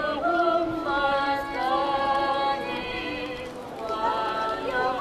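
A group of girls singing together, with long held notes and some vibrato.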